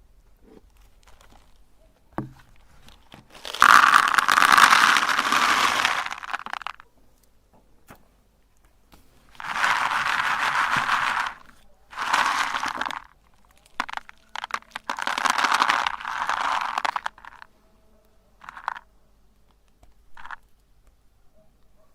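Meat grinder crushing candy: several bursts of crunching and cracking, the longest about three seconds, with short quiet gaps between them.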